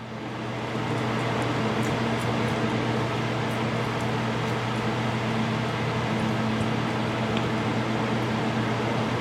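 A steady mechanical hum, like a running fan or other small mains-powered machine, comes up within the first second and holds level.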